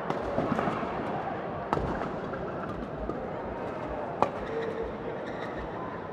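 Badminton rally: rackets striking the shuttlecock with sharp cracks, the loudest a little over four seconds in, over a murmur of voices in the hall.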